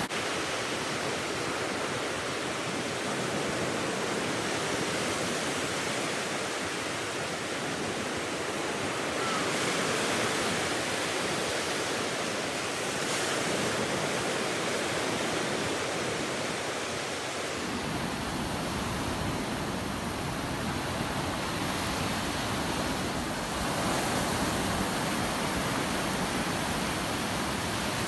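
Ocean surf: waves breaking and washing up the beach as a steady rush that swells and eases. A deeper low rumble joins about two-thirds of the way through.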